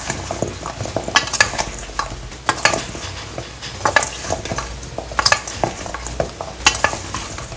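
Wooden spoon stirring oiled chunks of potato and carrot in a stainless steel mixing bowl: irregular knocks and scrapes against the metal, about one a second.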